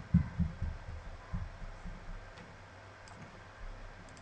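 Computer mouse clicks with low knocks, several close together in the first second and a half, then a few fainter ticks.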